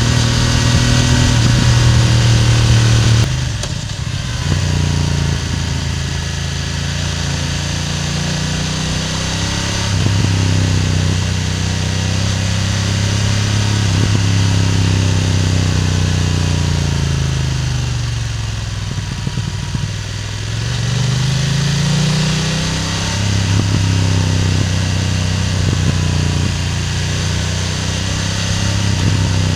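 BMW F900R's parallel-twin engine running while being ridden, heard from just above the exhaust. It is steady and loud at first and drops in level about three seconds in. About two-thirds of the way through, the engine note falls away as the bike slows, then climbs again as it accelerates.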